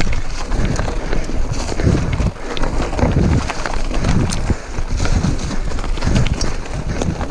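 Mountain bike running fast down a dirt singletrack: tyres on dirt and roots, the bike rattling and knocking irregularly over bumps, with wind rushing over the microphone.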